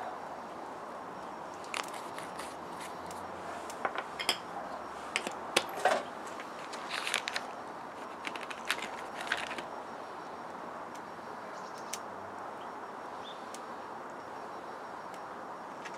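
Crinkling and clicking of a plastic bacon package being opened and strips pulled from it, a cluster of short crackles over a few seconds, then only a steady background hiss.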